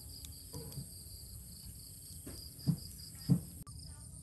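Steady high-pitched insect chorus trilling in the background. Two short loud knocks come about half a second apart near the end.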